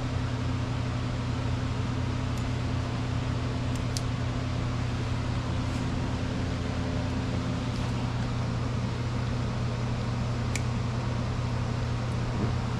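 A steady, low machine hum, like a running fan, with a few faint light clicks.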